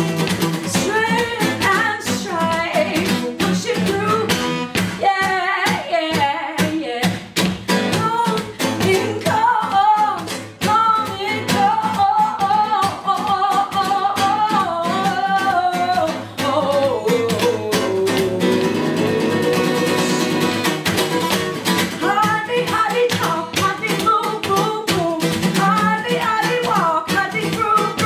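Acoustic guitar strummed fast and steadily, with a voice singing a wordless melody over it. Partway through, the voice glides down and holds a long note.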